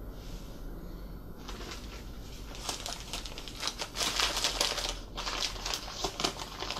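A sheet of old newspaper crinkling and rustling as it is unfolded by hand to unwrap a diecast toy car. It starts about a second and a half in, grows louder a second later, and pauses briefly near the end.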